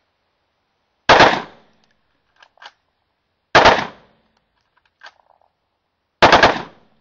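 Unsuppressed .223 rifle with a 14.5-inch barrel firing three short bursts of a few rapid shots each, about two and a half seconds apart. Each burst is a loud crack that trails off in under half a second.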